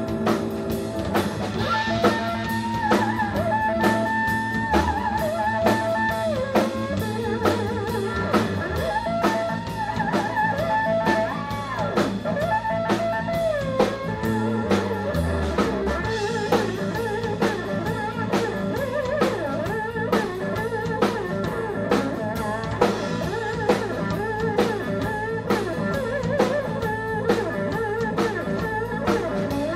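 Live blues band playing an instrumental passage: a Stratocaster-style electric guitar plays a lead line of bent and sliding notes over a drum kit's steady beat, with keyboard underneath.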